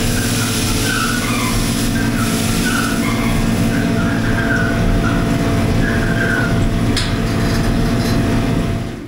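Water-transfer (hydrographic) auto cleaning machine running, its jets spraying and rinsing freshly dipped motorcycle parts to wash off the film residue: a loud, steady rush of spray over a low pump hum. It cuts off abruptly near the end.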